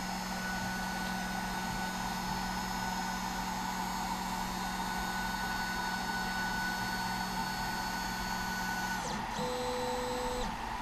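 Snapmaker 2.0 A350 3D printer's stepper motors whining steadily as its linear modules move the print head into position for manual bed leveling. The whine stops about nine seconds in and is followed by a shorter whine at a different pitch lasting about a second.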